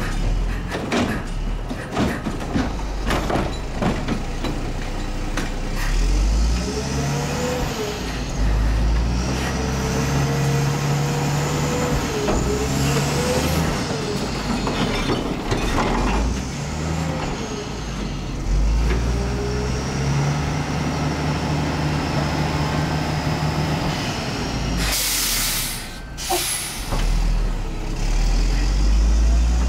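Mack LE garbage truck's engine revving up and down to drive the hydraulics as the Wittke front-loader arms lift a container over the cab, tip it into the hopper and lower it again, with a hydraulic whine rising and falling. Several metal clanks come in the first few seconds, and a loud air-brake hiss comes about 25 seconds in, followed by a shorter one.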